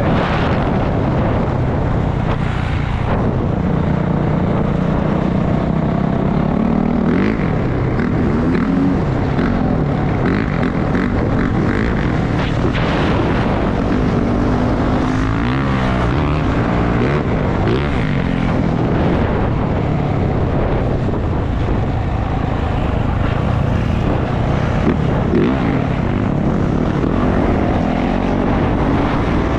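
450cc single-cylinder four-stroke dirt bike engine running under way, its pitch rising and falling as the throttle is worked.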